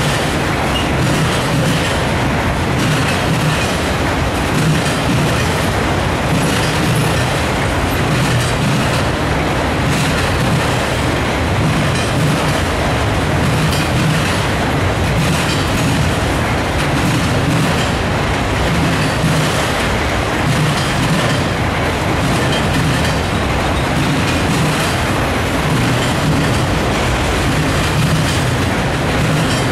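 Autorack freight cars rolling past at close range: a steady, loud rumble of steel wheels on rail that swells and eases slightly as each car's wheels pass.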